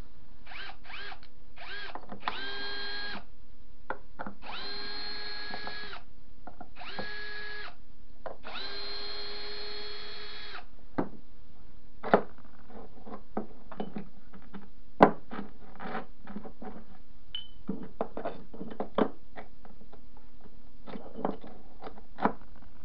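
A cordless power tool's motor run in a few quick trigger blips, then several longer runs of one to two seconds each at a steady pitch. After that come scattered sharp metallic clicks and knocks as the steel jaw pieces are handled.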